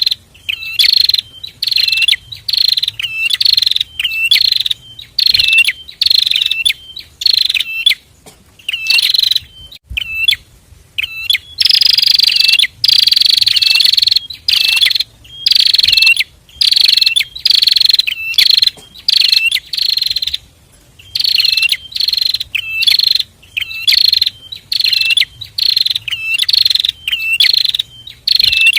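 A pair of prinias (prenjak) calling: loud, sharp chirps repeated rapidly, a few a second, with a longer buzzing trill about twelve seconds in.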